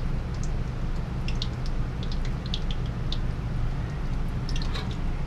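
Biscuit-dough donuts deep-frying in hot oil in a steel wok: a steady sizzle with many small, sharp crackling pops, over a steady low hum.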